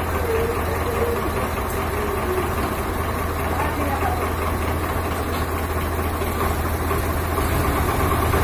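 Diesel tractor engines, one of them a Swaraj 855, running steadily at low revs with no revving up. Faint voices early on.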